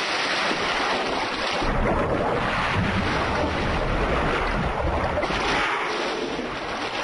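Steady wash of open sea water with wind noise.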